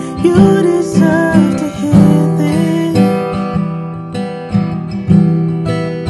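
Steel-string acoustic guitar strummed in a steady rhythm, with strong bass strokes about twice a second.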